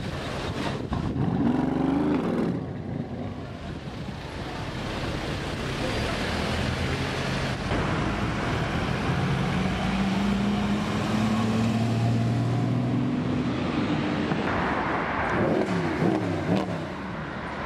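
Sports car engines accelerating hard in city traffic, one engine note climbing steadily in pitch through the middle as it pulls up through the revs.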